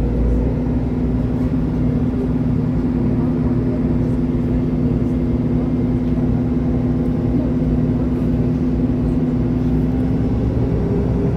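City bus driving at a steady pace, heard from inside the passenger cabin: a steady drive hum with held tones over low road and tyre rumble. Another tone joins about ten seconds in.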